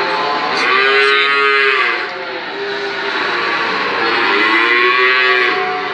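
Young feeder cattle mooing: two long drawn-out calls, the first starting about half a second in and lasting over a second, the second starting around three and a half seconds in and running about two seconds, over a steady background hubbub.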